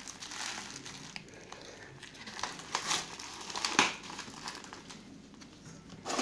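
Plastic crinkling and rustling in irregular short bursts, loudest about three and four seconds in, as hands tuck small plastic-wrapped pads under an orchid's leaves and grip its thin cut-plastic-bottle pot full of bark.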